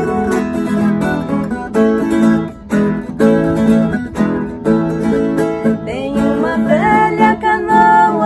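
A viola caipira and a nylon-string acoustic guitar play an instrumental passage together in a sertanejo-style folk tune. About six seconds in, two women's voices come in singing.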